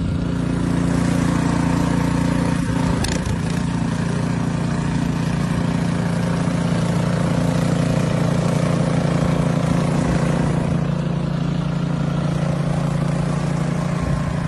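An engine running steadily: a constant hum with an even hiss of noise over it.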